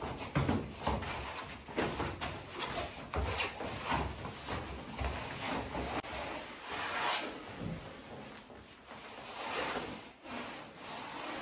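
Two people sparring on foam puzzle mats: a string of dull thuds and knocks from feet, gloves and bodies hitting the mat in the first half, then longer scuffing and rubbing as they grapple on the floor.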